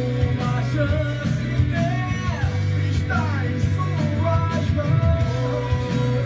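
A rock song playing, with a sung vocal over bass, guitar and drums.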